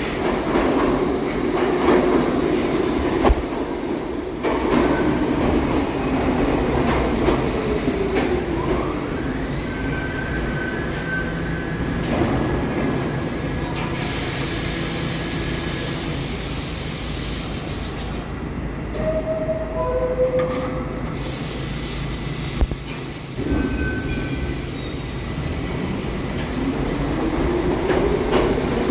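New York City subway train running on the track, with a motor whine that rises and falls in pitch and a few brief high squeals about two-thirds of the way through.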